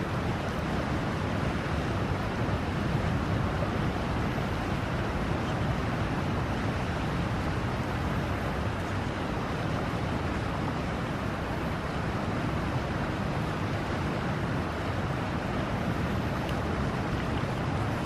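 Steady, even outdoor rushing noise with no bird calls.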